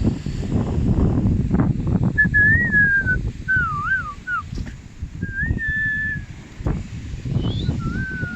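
A person whistling in three or four short wavering phrases, over wind buffeting the microphone.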